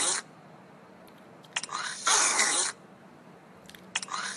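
A short, breathy, throaty vocal sound from a woman, like a huff or throat-clearing, that repeats about every two seconds in an identical pattern.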